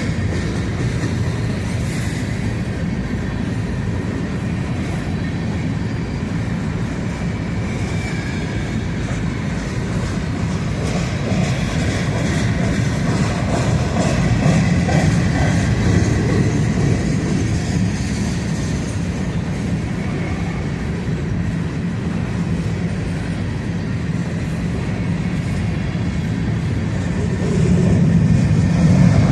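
Empty covered hopper cars of a freight train rolling past at low speed, their wheels clattering steadily over the rails. Faint high wheel squeals come in now and then, and the sound grows louder near the end.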